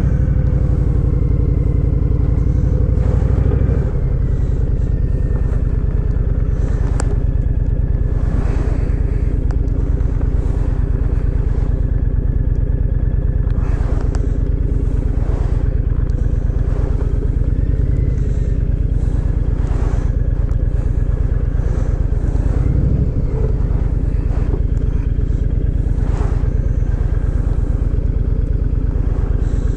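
Honda VTX1300R's V-twin engine running steadily at low revs. The engine note eases slightly about four seconds in.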